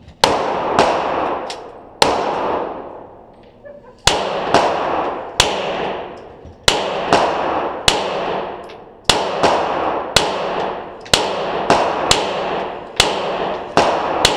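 Glock 34 9mm pistol being fired in a steady string of about eighteen shots, spaced half a second to two seconds apart, each shot followed by a long echoing decay.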